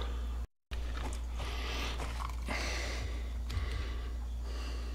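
Soft breathing and quiet handling noise from hands working in ballistic gel, in swells a second or so apart, over a steady low hum. The sound cuts out briefly about half a second in.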